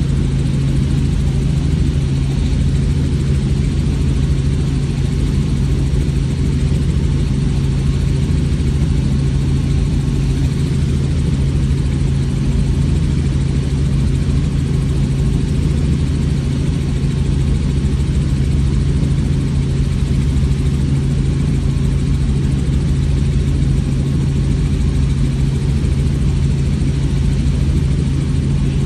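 Helicopter in flight heard from on board: turbine and rotor noise as a loud, unchanging drone with a strong low hum.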